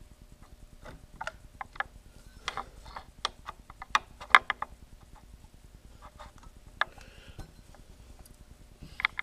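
Chamfer cutter in a mill-drill spindle cutting the edge of a cross-drilled hole in a metal tube, giving irregular clicks and ticks that cluster loudest about four seconds in.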